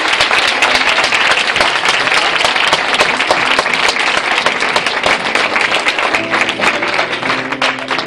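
Audience applauding. Many hands clap at once in a dense, loud wash that thins out near the end, as an instrument starts playing held notes.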